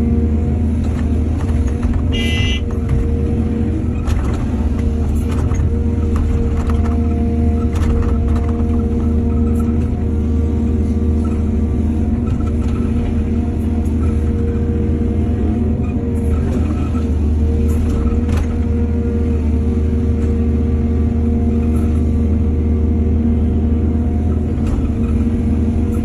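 Heavy diesel earthmoving machinery running steadily, with scattered light knocks and a brief high squeak about two seconds in.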